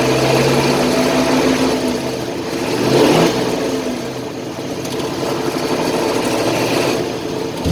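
GAZ-66 truck engine idling and given a little throttle, swelling about three seconds in, with a knock that came on after water got into the crankcase. The owner suspects a worn connecting-rod bearing, with the oil pressure warning light coming on as the revs rise.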